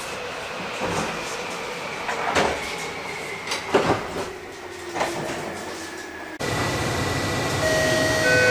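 Subway train's sliding doors closing, with several knocks and a louder clunk as the door leaves meet. About two-thirds through, a different train's cabin takes over with a steady high tone, and held electronic beep tones begin near the end.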